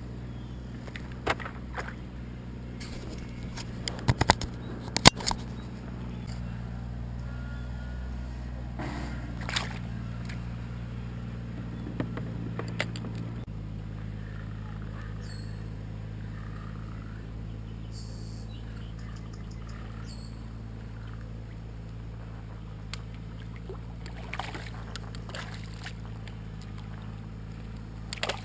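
Steady low mechanical hum, its pitch shifting about halfway through, with sharp knocks and clicks; the loudest knocks come in a cluster about four to five seconds in.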